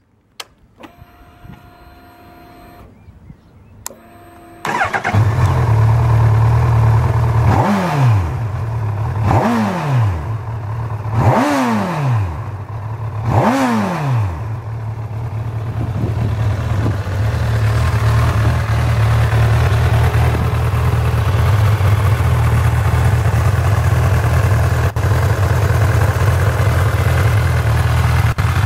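Honda CB1000R's inline-four engine: a faint steady electric whine with the ignition switched on, then the engine fires up about four seconds in and idles. Four quick throttle blips follow, each rising in pitch and falling back, before it settles into a steady idle.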